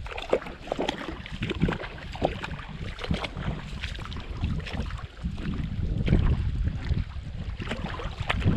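Wind buffeting the microphone with a steady low rumble, over irregular splashing and sloshing of someone wading through shallow river water.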